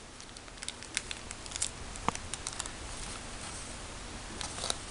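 Small crinkles and light ticks from a candy-kit packet being handled and its contents tipped into a plastic tray, with a cluster of sharper crinkles near the end.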